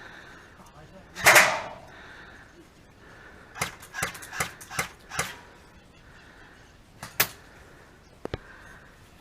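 Airsoft guns firing single shots: sharp cracks in an uneven string a few seconds in, then a couple more later. About a second in there is one louder, longer burst.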